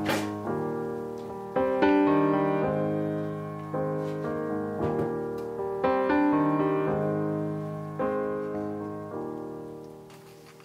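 Slow solo piano background music: notes and chords struck every second or so and left to ring, dying away near the end.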